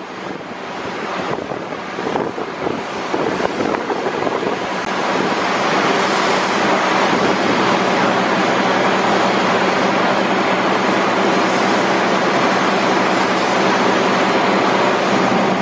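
Former Tokyo Metro 6000-series electric commuter train rolling slowly across station trackwork toward the listener, its running noise growing louder over the first several seconds and then holding steady.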